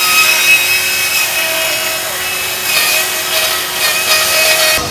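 Stihl cordless chainsaw running at full speed and cutting into a wooden board, its whine dipping slightly in pitch twice as the chain bites into the wood. It stops abruptly near the end.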